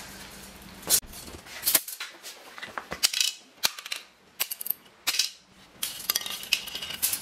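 Small plastic and metal tape measure parts set down one by one on a concrete floor: a series of sharp clicks, taps and light clatters.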